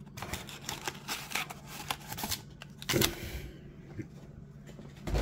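Wrapped trading-card packs being slid out of a cardboard blaster box and stacked on a table: rustling and crinkling with light taps, and a louder tap about three seconds in.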